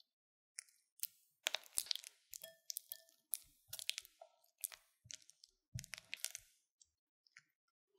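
Spatula pressing and scraping softened butter against the inside of a glass bowl, a run of short, irregular scrapes and smacks about two a second, stopping about seven seconds in. The butter is being creamed smooth, the first step of a butter cookie dough.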